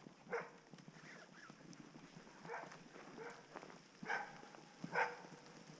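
Hungarian vizsla barking in short calls, about five times at uneven intervals, over the rustle of someone running through forest leaf litter.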